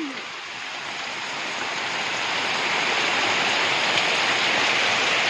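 Heavy rain pouring down steadily, growing louder over the first few seconds and then holding.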